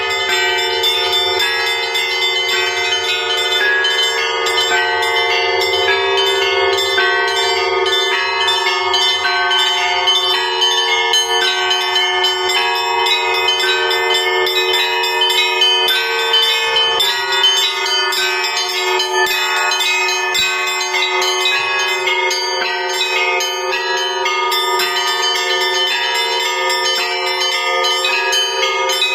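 Russian Orthodox church bells ringing a continuous festive peal, rung to greet a cross procession. Quick, busy strokes of small high bells over the steady ringing of larger bells.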